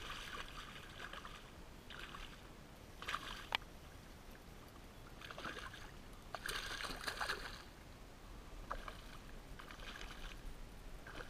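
A hooked redfish thrashing at the water's surface beside a kayak, making a series of irregular splashes several times over, with one sharp click about three and a half seconds in.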